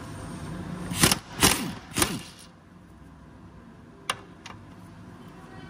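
A power tool driving a socket on a long extension to undo a bolt in the engine bay: three short bursts about half a second apart in the first two seconds, each winding down in pitch as the trigger is let go, then two light clicks near the end.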